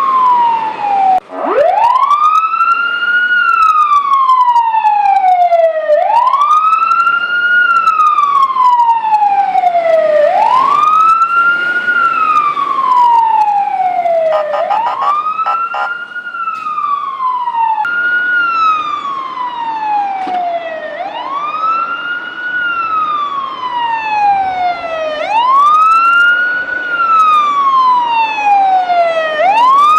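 Fire truck siren wailing. Each cycle rises quickly and falls slowly, repeating about every four seconds. It drops out briefly about a second in, then winds back up from a low pitch.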